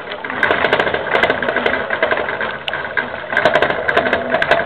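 Plastic hamster wheel spinning under a running hamster: a fast, uneven clatter of clicks and rattles.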